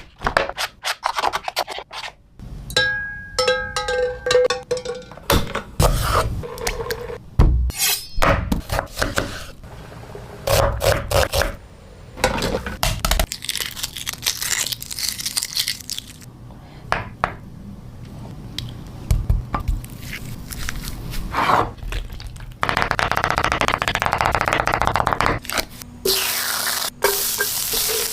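Kitchen preparation sounds: a run of sharp knocks, crunches and scrapes of a knife and utensils, with a few seconds of steady hiss near the end.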